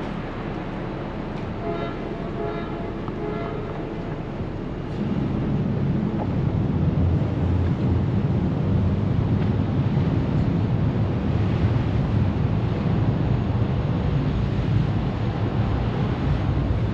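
Ferry's diesel engines running under way, mixed with wind buffeting the microphone and water washing past the hull. The low rumble grows clearly louder about five seconds in and then stays steady.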